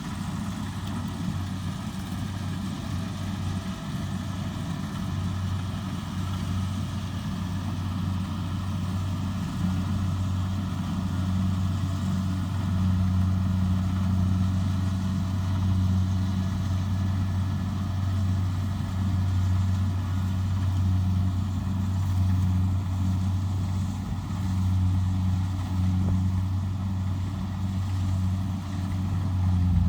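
Diesel engine of a Kubota DC70 rice combine harvester running steadily at constant speed, a deep even hum.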